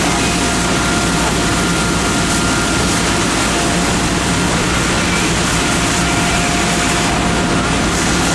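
Fire apparatus engine and pump running hard and steadily: a constant loud drone with a steady low hum.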